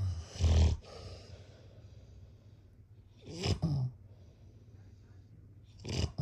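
Snoring: three rough, buzzing snores about three seconds apart, near the start, midway and at the end, with quiet breathing between them.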